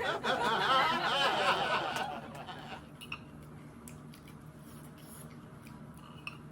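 A woman laughing in a run of short bursts for about two seconds, a reaction to the burning heat of the chili she is eating. After that there is only a faint steady low hum.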